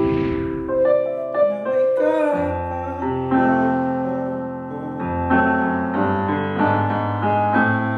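Background music: a song carried by sustained piano/keyboard chords that change every couple of seconds.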